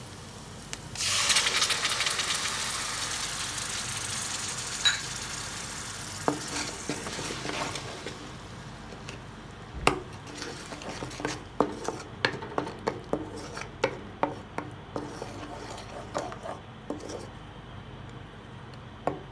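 Tomato puree hitting hot oil and ginger-garlic paste in a pan, with a sudden loud sizzle about a second in that slowly dies down. Then a wooden spatula stirring the sauce, with many sharp scrapes and knocks against the pan.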